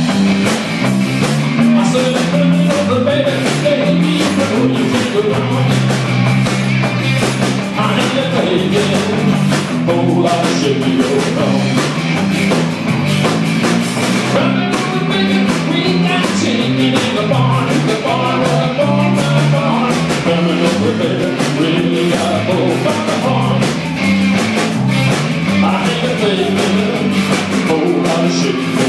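Live bar band playing a song: guitar and drum kit keeping a steady beat under a sung lead vocal.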